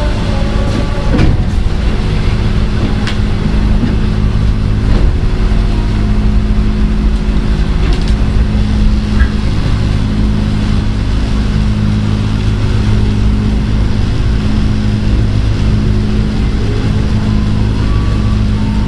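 Ex-Tokyu 8000 series electric commuter train heard from on board while running: a steady electrical hum of several low tones over continuous wheel-and-rail noise, with a few faint gliding tones about a second in and near the end.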